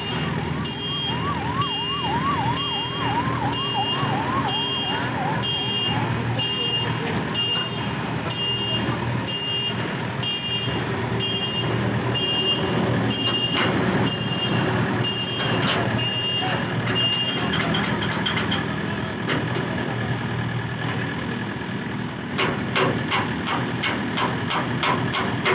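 Electronic warning beeper on heavy machinery sounding a steady series of beeps, which stop about two-thirds of the way through, over a heavy engine running. Near the end a quick run of clicks is heard.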